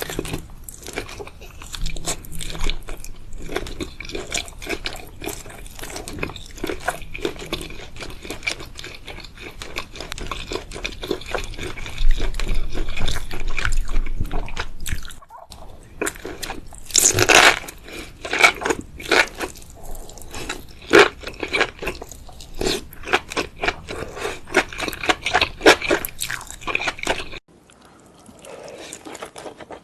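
Close-miked eating of seafood: dense, irregular wet chewing, biting and crunching sounds. It drops off suddenly to a quieter stretch near the end.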